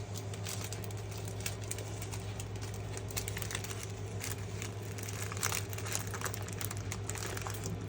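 Small plastic bag crinkling and rustling as it is handled, with irregular light crackles and clicks over a steady low hum.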